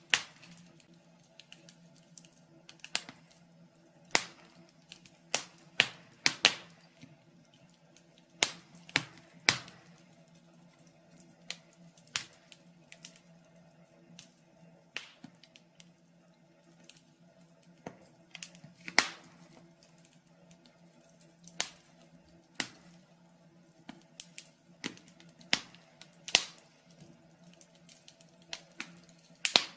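Wood fire in a fireplace crackling, with sharp irregular pops and snaps one to a few times a second over a faint steady hum.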